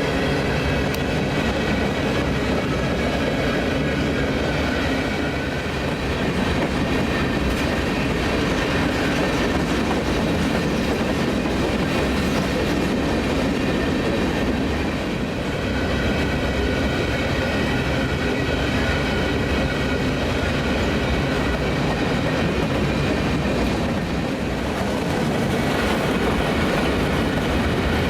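Aggregate freight train rolling steadily past, with a continuous rumble and steel wheels clattering over the rails.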